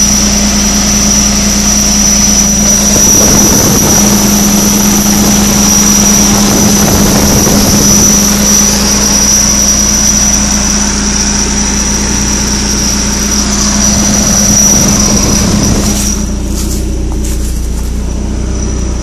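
Turbocharged engine running with its freshly rebuilt Garrett GT2860RS turbo making a steady high-pitched whine with a slight metallic edge as it spins, a noise of unknown cause that does not seem to affect performance. Near the end the whine drops away and a few sharp clicks are heard.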